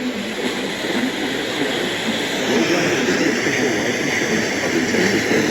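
FM radio static: a steady hiss from a receiver tuned to a weak station, with faint fragments of a broadcast voice just audible under the noise.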